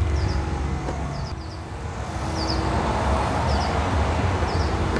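Outdoor ambience: a steady low rumble like distant traffic, with a small bird giving high double chirps about once a second.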